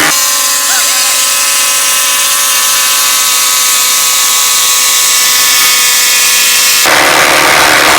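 Two cordless impact drivers, a Hercules and a Flex, hammering together as they drive 19mm x 8-inch lag screws into wood on speed 3. The impacting is loud and steady, and its tone shifts about seven seconds in.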